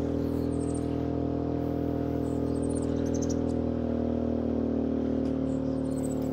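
Dinking DK2300i-M inverter generator's engine running hard under about 1,700 W of load, above its 1,600 W rating. Its pitch sags a little about four seconds in as it starts to bog down under the overload.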